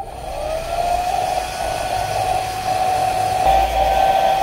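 Hair dryer switching on, its motor whine rising in pitch as it spins up over the first second, then running steadily with a rush of air, a little louder about three and a half seconds in. It is warming the double-sided tape of a phone's back cover.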